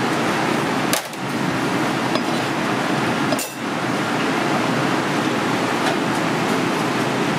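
Steady kitchen background noise with two sharp knocks, about one and three and a half seconds in, of a cleaver striking a wooden cutting board while slicing fish fillet.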